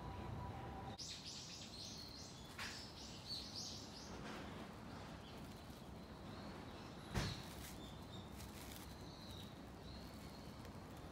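Small birds chirping and twittering over faint outdoor background noise. The calls start about a second in and are busiest over the next three seconds, then thin to a sparse, high call. There is a single sharp knock about seven seconds in.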